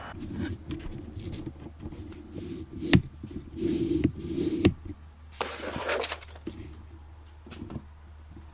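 Handling noise from hands gripping and rubbing a camera body, picked up through an on-camera Marantz Audio Scope SB-C2 microphone: scraping and rubbing, with a sharp knock about three seconds in and another just before five seconds, over a steady low hum.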